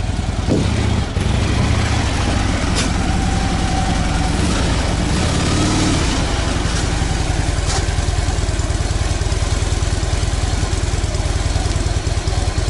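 Cruiser motorcycle's engine running at low speed with a steady low throb as the bike is ridden slowly up a ramp into a trailer.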